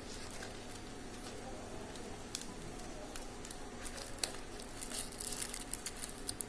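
Faint steady room hum with scattered light clicks and rustles, more of them in the second half.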